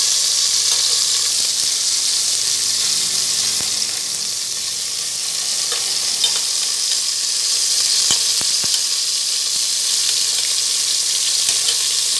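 Chicken wings sizzling steadily as they fry in oil in a metal pressure cooker pot. A slotted spatula turns them, with a few sharp clicks against the pot past the middle.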